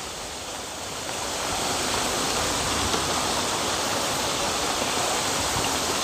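Steady rain falling, a constant even hiss that swells a little over the first two seconds and then holds.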